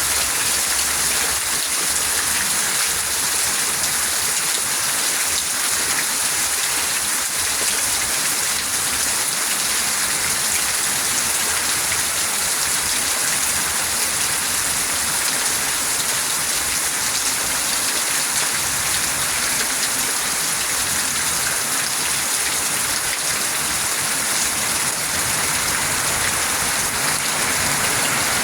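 Steady, heavy rain falling and pattering on surfaces, an even hiss without a break.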